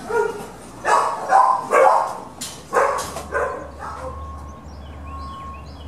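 Dogs in shelter kennels barking, a quick irregular run of loud barks over the first three seconds. From about four seconds in, birds chirp faintly.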